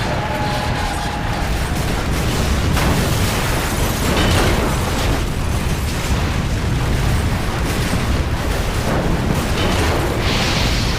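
Airplane-crash sound effect: a loud, sustained rumbling explosion with a few sharper bursts, one near the end.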